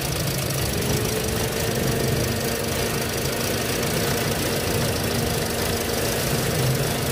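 Toyota Vios four-cylinder petrol engine idling roughly and unevenly, with a faint steady whine coming in about a second in. The rough idle and misfire come from a vacuum hose that the mechanic finds pulled off behind the throttle body.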